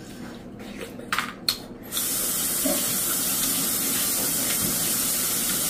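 A few light knocks, then about two seconds in water starts running steadily from a tap.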